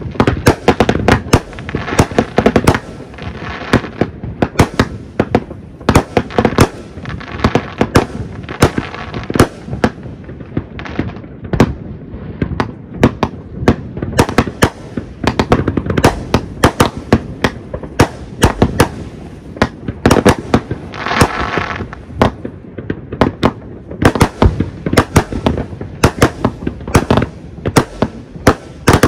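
Fireworks going off in quick, irregular succession: a dense stream of sharp bangs and cracks, with stretches of crackling in between.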